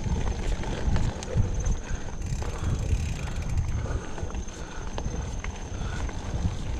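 Mountain bike being ridden along a trail: a low wind rumble on the microphone, with scattered clicks and rattles from the bike over the ground and a steady high-pitched buzz.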